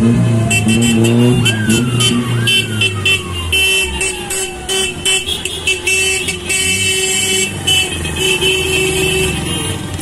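Cars in a slow convoy honking their horns in repeated blasts over running engines. Twice, about a second apart near the start, a siren gives a quick rising whoop that falls away slowly.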